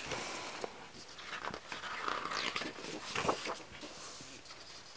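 Glossy photobook pages being handled and turned over: irregular paper rustling with a few soft flaps, busiest in the middle.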